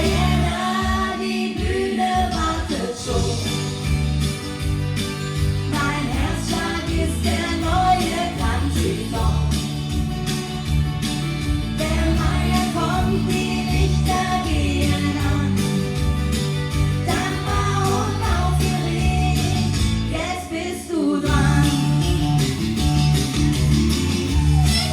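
Live country band playing a song with guitar, bass and lead singing, backed by harmony vocals; the bass drops out briefly about three-quarters of the way through.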